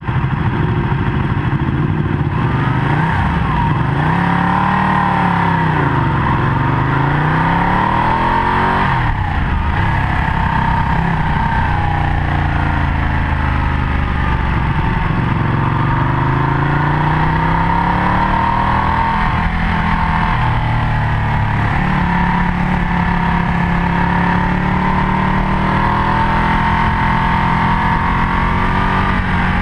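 Ducati 1199 Panigale's 1198 cc Superquadro L-twin engine heard from on board, revving up hard and dropping back again and again as the bike accelerates and slows on a race track, with sudden drops in pitch at the gear changes.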